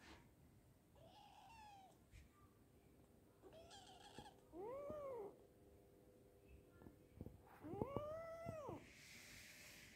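Young kitten meowing: several short calls that rise and fall in pitch, the two loudest about five and eight seconds in.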